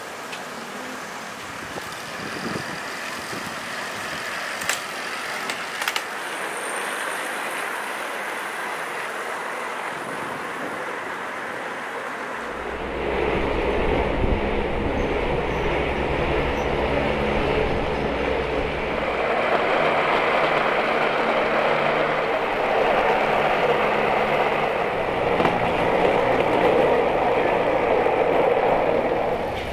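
Small rail trolley's wheels rolling along steel rails, a steady noise with a few sharp clicks. About twelve seconds in it gets louder, with a low steady hum under it.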